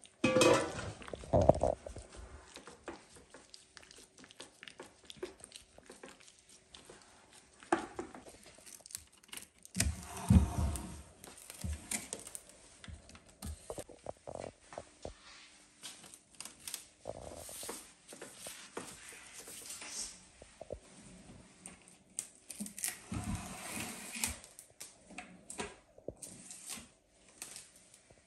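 Kitchen handling noises: wet cut plums pressed down in a glass bowl as a metal bowl is handled, then plastic cling film crinkling and tearing as it is pulled off the roll and stretched over the bowl.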